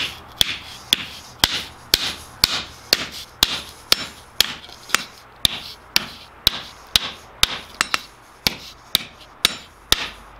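Hand hammer striking a poplar board laid on a steel anvil, a steady two blows a second. The blows pinch the edge into a bevel, the wrong technique for this, and the wood splinters and splits under them.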